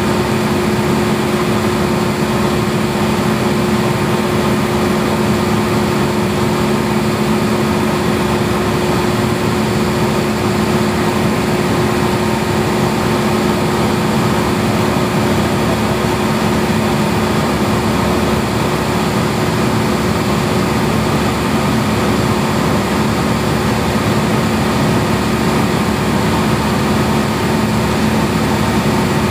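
Cessna single-engine plane's piston engine and propeller droning steadily in level cruise flight, an unchanging hum with no change in power.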